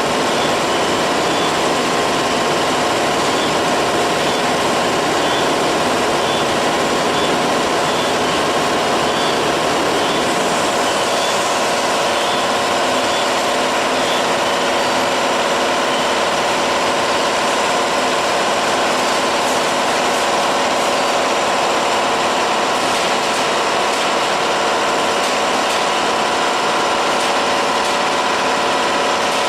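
Corn flour packaging machine running: a steady mechanical hum with constant motor tones, and a faint regular ticking through the first half.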